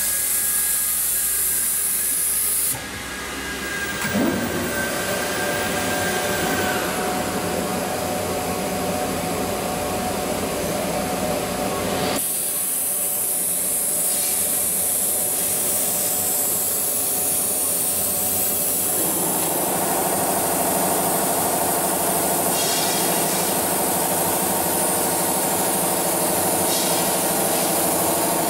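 AccTek AKM1325C CNC router running, a steady machine whine with hiss. Its tone shifts abruptly three times.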